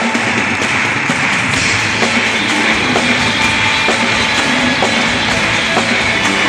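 Loud rock music with guitar and drums; a low bass part comes in about two seconds in.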